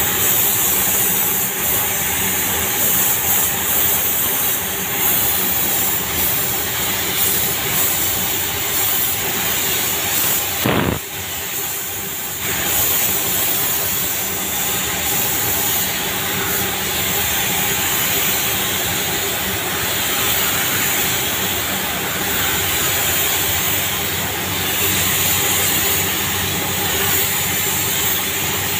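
Compressed air hissing steadily through a gravity-feed paint spray gun as paint is sprayed, over a steady low hum. The hiss drops off briefly about eleven seconds in, then carries on.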